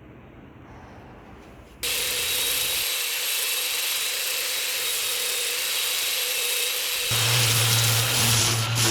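Angle grinder with a 60-grit flap disc switching on about two seconds in and running with a steady whine. About seven seconds in it gets a little louder with a deep hum added, as the disc sands and shapes mahogany.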